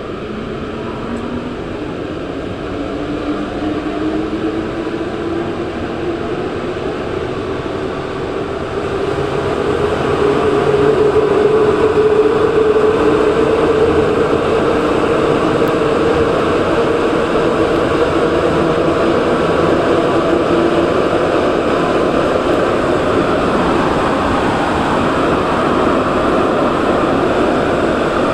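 Santiago Metro NS-2004 train pulling away and accelerating, its traction motors giving a whine that rises in pitch for the first dozen seconds or so. It then runs steadily at speed, louder, with the even rumble of the train running.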